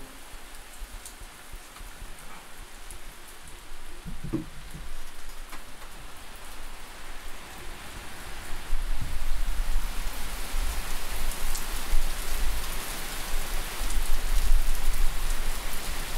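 Steady outdoor rushing hiss, rain-like, with scattered light ticks. A low rumble comes in about nine seconds in, and the whole sound grows louder.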